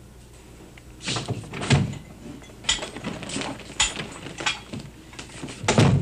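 A door being opened and shut, with a string of irregular knocks and clatters.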